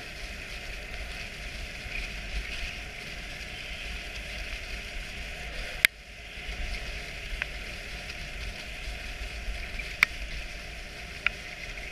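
A dog sled gliding over packed snow behind a running dog team, a steady hiss, broken by a few sharp clicks, the loudest about six seconds in.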